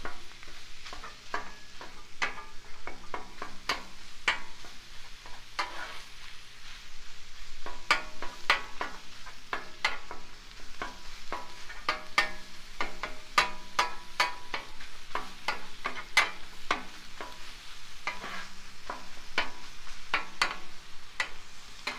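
Ground beef and onions frying on a hot Blackstone flat-top griddle while a spatula chops and scrapes through the meat against the steel top, giving irregular sharp clacks and scrapes over a steady sizzle.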